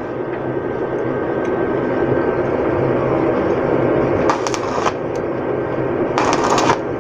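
Stick (flux-coated electrode) arc welding on stainless steel pipe: the arc crackles and sizzles steadily, with two brief sharper hissing bursts about four and a half and six and a half seconds in.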